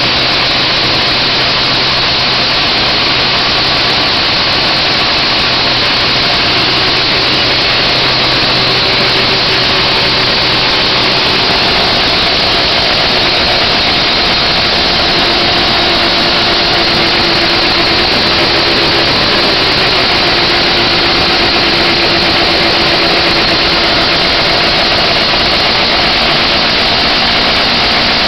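Vintage snowmobile's fan-cooled twin-cylinder engine running steadily, loud and close.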